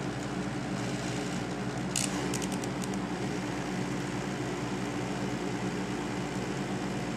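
Electric drill running steadily at slow speed, its drill-out extractor bit boring into a broken exhaust manifold stud in a cast cylinder head. A few light clicks come about two seconds in.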